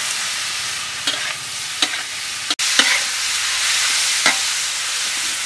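Pork intestine sizzling in a hot wok while a metal spatula stirs it, with a few sharp knocks and scrapes of the spatula against the wok.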